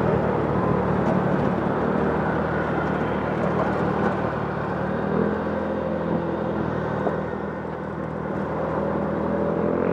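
Motorcycle engine running steadily while riding in street traffic, with wind and road noise. The engine note shifts a little in the second half as the speed changes.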